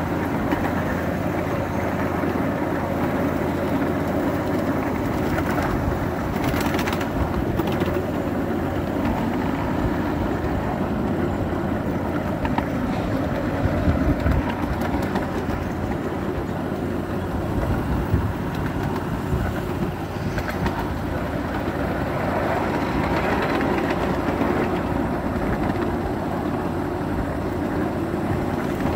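Model trains running on a layout: a steady running noise of wheels on track, with a few short clicks.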